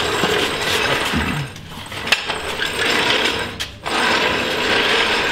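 Workshop tool noise: a steady mechanical rattling hiss in stretches of about a second and a half, broken by short pauses, with a sharp click about two seconds in.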